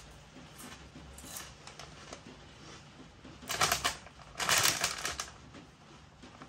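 Two short bursts of crackling from Lorenz Crunchips crisps, about three and a half and four and a half seconds in.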